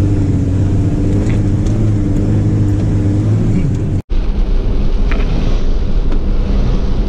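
Toyota LandCruiser HJ75's straight-six diesel engine droning steadily while driving, heard from inside the cab, with a brief change in pitch just before an abrupt cut about four seconds in. After the cut the same engine drone carries on.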